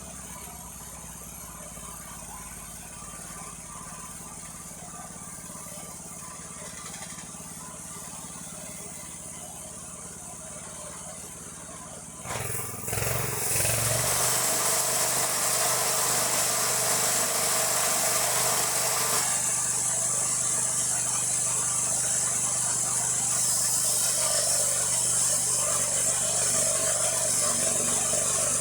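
Band sawmill's engine idling, then about twelve seconds in speeding up to a much louder steady run.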